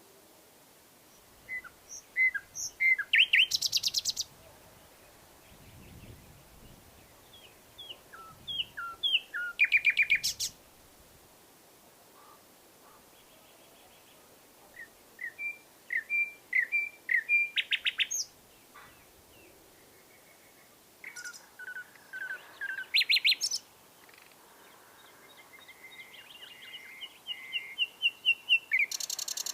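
Nightingale singing: five separate phrases a few seconds apart, each a run of repeated whistled notes ending in a fast rattling trill.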